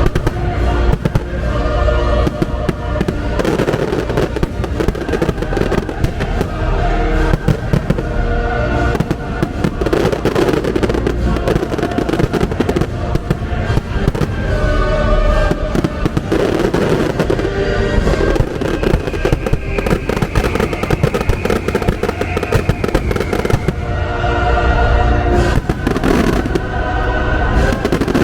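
Fireworks bursting in a dense, nonstop barrage over loud show music.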